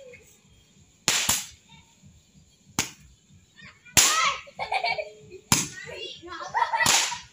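Small ground-launched fireworks going off: five sharp cracks, irregularly spaced about one to one and a half seconds apart.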